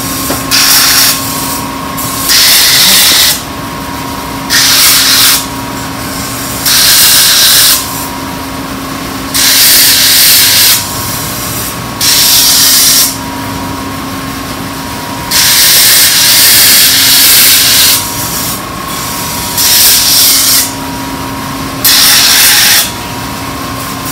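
Kitchen knife blade pressed again and again against a motor-driven grinding wheel: a steady motor hum with loud hissing grinding strokes about every two seconds, about nine in all, one near the middle held longer. This is the grinding stage that takes the forged blank toward a cutting edge.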